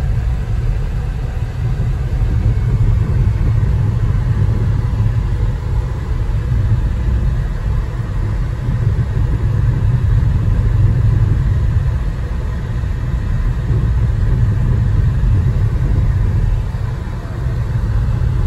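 Car engine and road noise heard from inside the cabin while driving: a steady low rumble, easing briefly near the end.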